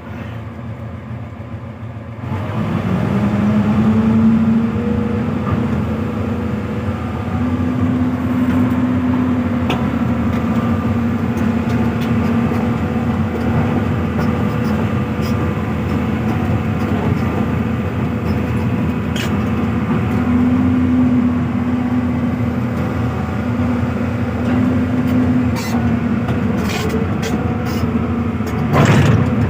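Hyundai 215 excavator's diesel engine running at high throttle, picking up load about two seconds in as the hydraulics are worked, its steady drone swelling and easing. A few sharp clicks and a heavier knock come near the end.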